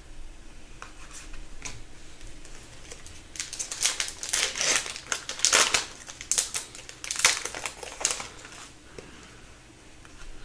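Foil wrapper of an Upper Deck hockey card pack crinkling and tearing as it is opened, in a run of crackling rustles loudest from about three to eight and a half seconds in.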